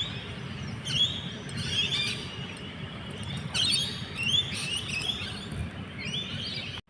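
Wild birds chirping in short, repeated phrases over a low, steady background rumble.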